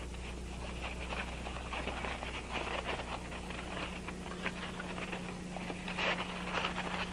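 Stiff folded paper model rustling and crackling as it is handled and folded, in many small irregular crackles over a steady low hum.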